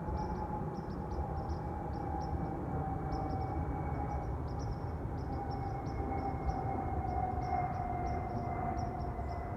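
A jet airliner passing low, a steady rumble under a clear whistling whine that slowly drops in pitch. Faint high chirps repeat several times a second.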